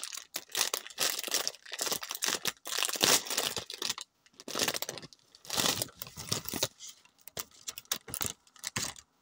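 Clear plastic sticker bag crinkling and rustling in the hands in irregular bursts as it is pulled open. The crinkling stops shortly before the end.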